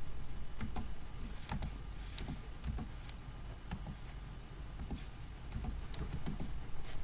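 Computer keyboard typing: scattered single keystrokes in small, irregular groups.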